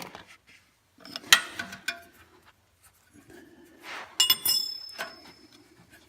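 A steel wrench clinks against metal a few times, with a sharper clank about four seconds in that rings on briefly.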